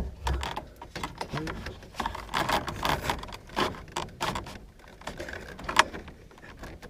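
Irregular clicking, tapping and rustling as a truck cab headliner panel is pushed, jiggled and screwed into place, with one sharp knock near the end.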